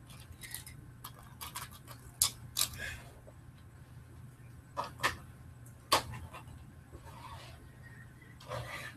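Scattered light clicks and knocks of die-cast Hot Wheels Monster Jam toy trucks being handled and picked up off a carpet, with a low steady hum underneath.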